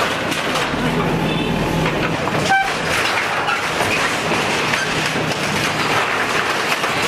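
Diesel engine of a JCB backhoe loader running under load, with continuous clanking, scraping and crashing of corrugated metal sheets and timber as the arm tears down a tin-sheet structure. A brief high squeal or tone sounds about two and a half seconds in.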